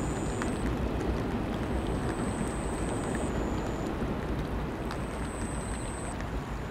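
Steady rain over a low, continuous city rumble, with occasional small ticks of drops. A thin, high-pitched steady tone comes and goes in stretches of about a second or so.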